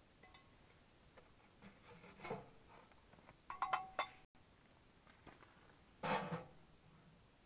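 Sheet-metal parts of a Frontier portable wood stove being handled and fitted together: light metallic clinks, a short cluster of ringing clinks near the middle, then a louder clanking scrape about six seconds in as a stovepipe section is worked onto the stove.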